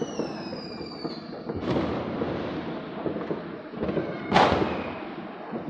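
New Year's fireworks and firecrackers going off across the city: a steady crackle of distant bangs, a high whistle falling in pitch in the first second, and a louder sharp bang about four seconds in that echoes away.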